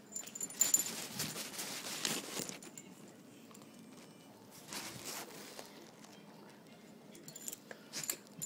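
Faint rustling and scuffling as a Siberian husky puppy moves about on carpet, in bursts during the first couple of seconds and again about halfway through. Light clicks and jingling come near the start and near the end.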